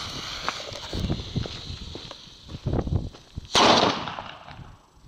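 Xplode China Böller D firecracker: the lit fuse hisses and sprays sparks, then about three and a half seconds in the firecracker goes off with a single sharp, loud bang that dies away over about a second.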